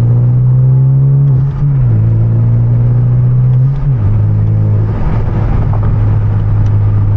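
Turbocharged engine and aftermarket exhaust of a manual Hyundai Genesis Coupe pulling under load, its pitch climbing and then dropping sharply twice, about a second and a half and four seconds in, as the driver shifts gears; after the second shift the engine holds a steady note.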